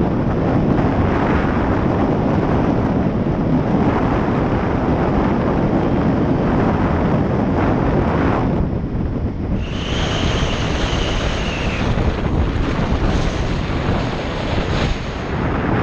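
Heavy wind buffeting on a helmet-mounted GoPro Hero 4 Session's built-in microphone on a moving motorcycle, a loud rough rumble that swamps everything else. This is the camera's mic being overwhelmed by wind at riding speed. A steady high whistle cuts in for about two seconds partway through.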